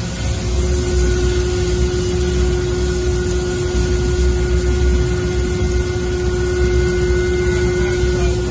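Mattison rotary surface grinder running: a steady machine hum and rushing noise with an even tone through it, and a fainter higher tone joining about a second in.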